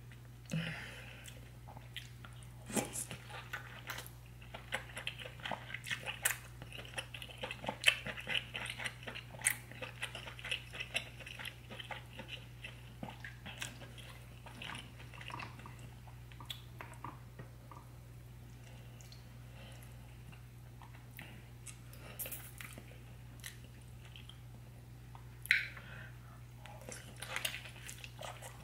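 Close-miked wet chewing of sauce-soaked king crab meat, with many sharp mouth clicks and smacks. It is busiest in the first half and eases off in the middle, then a single loud smack about 25 seconds in and more chewing near the end. A steady low hum runs underneath.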